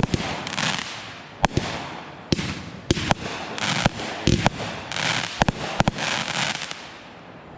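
A consumer fireworks cake firing: about nine sharp bangs at uneven gaps of half a second to a second, with crackling and hissing from the bursting effects between them, dying away near the end.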